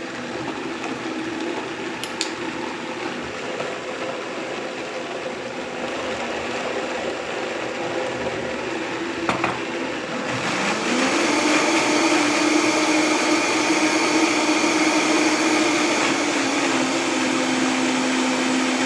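Vitamix blender running, blending basil, pine nuts, garlic and olive oil into pesto. About ten seconds in, the motor speeds up with a rising whine and gets louder, then settles a little lower in pitch near the end.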